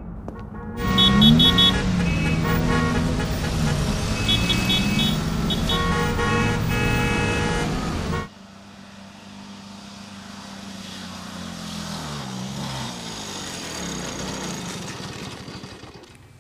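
Sound effects of a vehicle engine whose pitch rises and falls, with short repeated beeping, horn-like tones. It cuts off sharply about eight seconds in, giving way to a quieter, slowly gliding engine sound that fades near the end.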